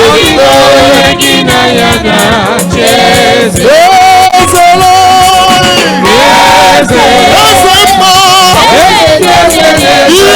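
Gospel praise music: voices singing together over percussion, loud and continuous.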